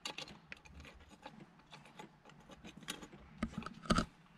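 Bolts being fitted by hand through a short-shifter alignment plate: scattered light metal clicks and taps, with two louder knocks near the end.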